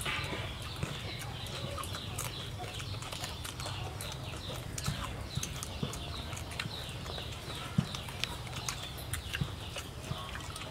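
People eating roast pork with their hands: chewing and lip smacks make many short, irregular clicks over a steady low hum. One click is sharper than the rest, about eight seconds in.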